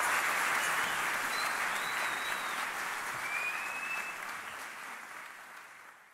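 Audience applauding steadily, fading away toward the end.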